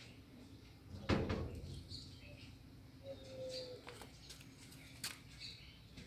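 A single dull thump about a second in, against faint, repeated short high chirps and one brief falling tone near the middle.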